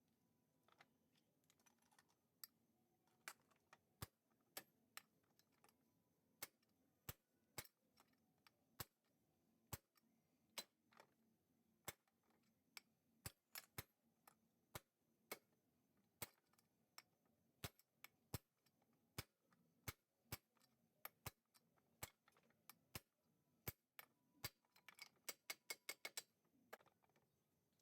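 Faint, sharp clicks or light taps, irregular at about one to two a second, with a quick run of clicks near the end.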